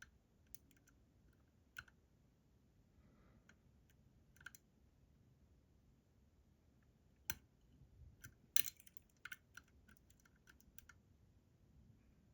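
Faint, scattered small metal clicks of a lock pick and tension tool working the pins of a Robur 2391 lock cylinder as the picking starts over. The clicks are sparse at first and come thicker in the second half, with two louder clicks around seven and eight and a half seconds in.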